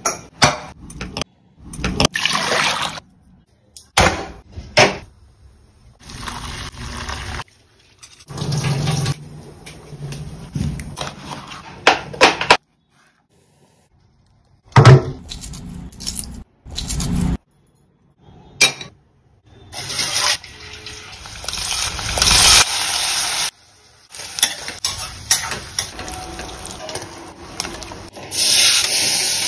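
A string of short, abruptly cut kitchen sounds: pots and pans clanking, liquid pouring and splashing, and oil sizzling in a pot near the end.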